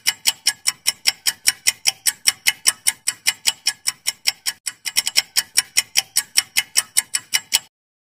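Quiz countdown-timer sound effect: rapid, even clock ticking, about five ticks a second, that stops abruptly shortly before the end.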